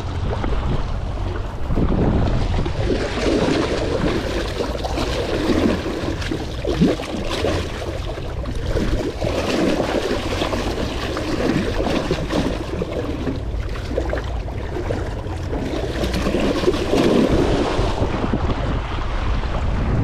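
Wind gusting on the microphone, with waves washing against the shore.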